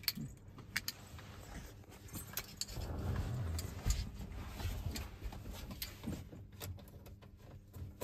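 Car keys jangling with scattered light clicks, and a stretch of rustling and shuffling in the middle as the key is handled in the car's front.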